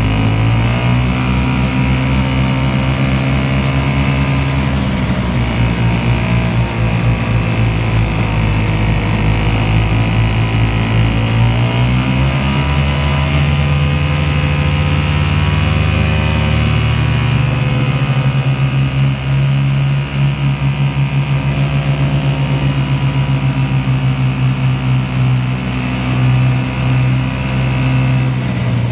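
A 1972 Ski-Doo Elan 250's two-stroke engine running under way on the snowmobile. The engine note dips and climbs again several times as the throttle is eased and opened, and for a stretch past the middle the loudness flutters rapidly.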